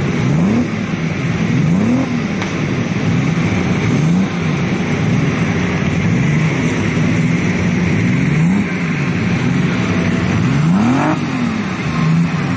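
Several pre-war vehicle engines revving and driving past one after another, their pitch rising and falling over and over on top of a steady engine rumble.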